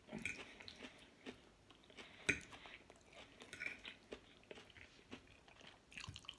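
Close-up chewing and mouth sounds, with scattered light clicks of a metal fork against a plate; the sharpest click comes a little past two seconds in.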